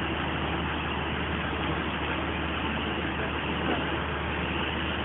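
Fire-rescue truck engine idling with a steady low hum.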